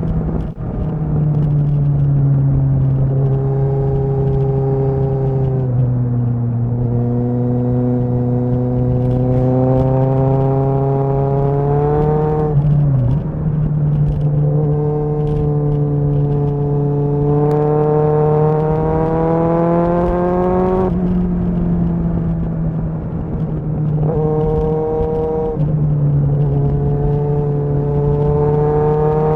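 Kawasaki ZXR inline-four motorcycle engine under way, its pitch climbing steadily and then dropping back sharply again and again as the rider accelerates and shifts up through the gears.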